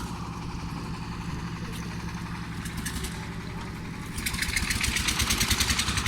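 An engine of site machinery running steadily; about four seconds in, a louder, fast rattling joins it for around two seconds.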